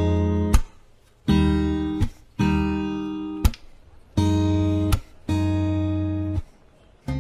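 Acoustic guitar music: strummed chords, each left ringing for about a second and then cut off by a sharp percussive stroke before the next.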